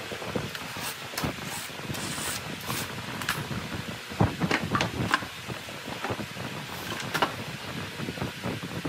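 Wooden blocks and boards being handled on a workbench: scattered knocks and clatters as pieces are picked up and set down, the loudest a few seconds in, over a steady background hiss.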